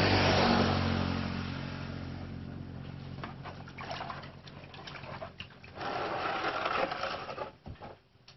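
Water sloshing and splashing in a plastic basin as a motorcycle inner tube is pushed under and worked through it, as is done to find a puncture; a motorbike engine running in the background fades away over the first couple of seconds.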